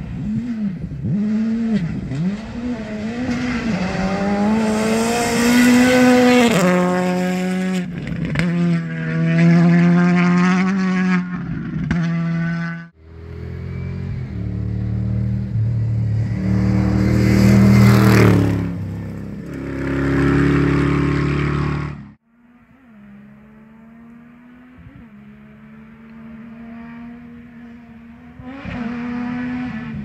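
Cross-country rally cars racing on dirt tracks, in three cut-together passes. First an engine revs up and shifts through the gears. After a sudden cut comes a louder, deeper engine going hard and passing close, and after another cut a fainter, distant engine that grows louder near the end.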